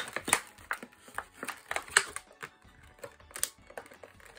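Irregular clicks, taps and rustles of a Hangrees toy's plastic packaging and paper insert being handled and opened.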